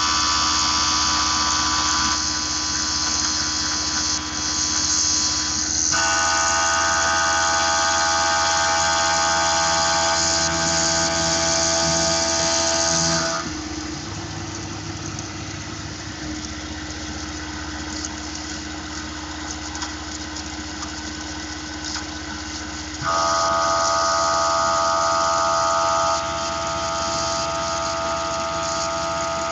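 Tormach PCNC 1100 CNC mill's spindle running, with a 10 mm end mill milling an aluminium part to length. A loud whine of several steady tones sounds while the tool is in the cut, for about the first 13 seconds and again briefly about 23 seconds in. Between those cuts the machine runs more quietly.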